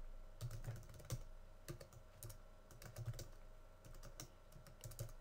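Computer keyboard typing: faint, irregular keystroke clicks as a terminal command is typed out.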